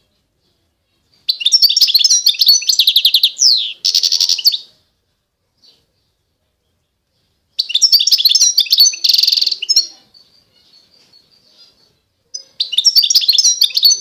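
A caged finch singing in three bursts of fast, varied twittering, each about two to three seconds long. The bursts hold quick trills and buzzy notes, with near-silent pauses between them.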